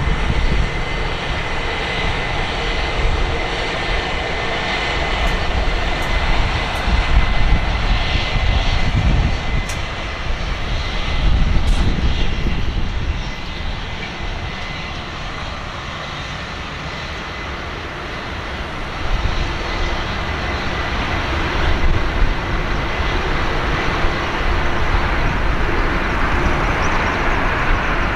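Boeing 747-400F's four jet engines running as it comes in to land: a steady rumbling roar with a faint whine over it. The noise dips, then rises again about two-thirds of the way through and stays up with more hiss.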